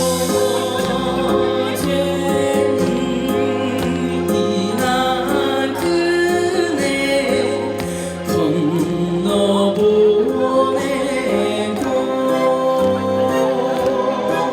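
Korean trot music playing, a full band accompaniment with steady sustained notes.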